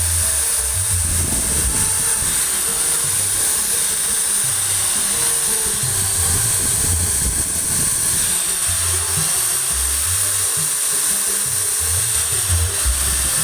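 Small electric grinder running steadily with a high whine as it grinds down built-up weld between the gear teeth. Background music with low bass notes plays underneath.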